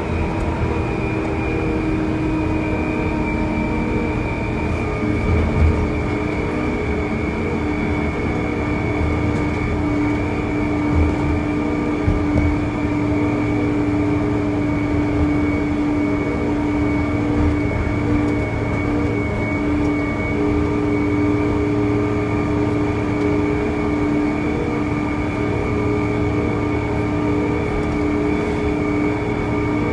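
Inside the cab of a KATO MR-350R rough-terrain crane driving at road speed: the diesel engine and drivetrain drone steadily under a constant thin high whine, with road noise and a few brief low thumps.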